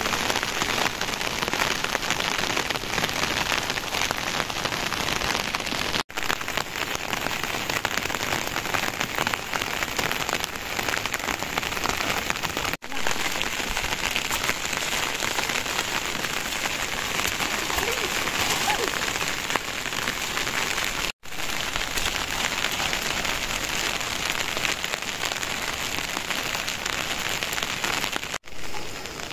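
Steady monsoon rain falling on surfaces, a dense even patter. It cuts out for an instant four times, about every seven seconds.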